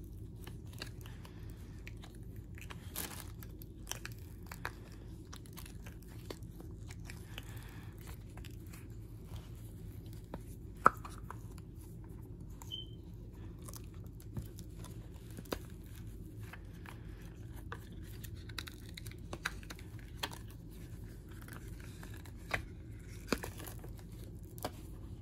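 Silicone mold being flexed and peeled away from a cured resin tray: soft sticky tearing and crackling as the silicone releases, with scattered small clicks and one sharp snap about eleven seconds in.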